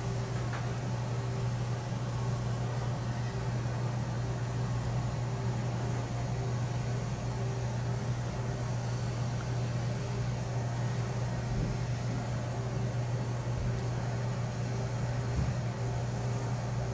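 Steady low machine hum with a fainter higher tone above it, running without change.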